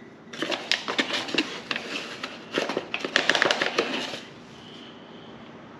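Paper flour bag crinkling and rustling as a measuring spoon is dipped into it, in two bursts of rapid crackly rustle that stop about four seconds in.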